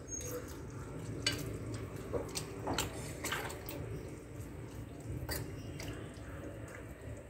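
A spoon stirs thick, wet oats-and-vegetable batter in a glass bowl as water is worked in. It makes sloshing, squelching sounds, with scattered clicks of the spoon against the glass.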